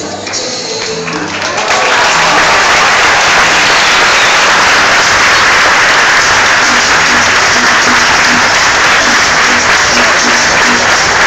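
Audience applause: music plays at first, then about two seconds in a crowd breaks into loud, steady clapping, with the music still faintly audible underneath.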